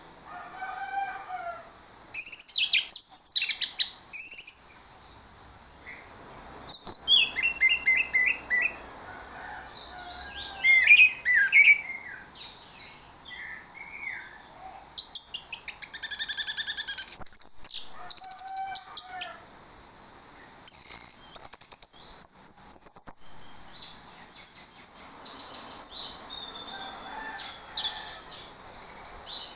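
Orange-headed thrush singing a varied song: phrases of rapid high notes, quick trills and runs of repeated notes, broken by short pauses of a second or two.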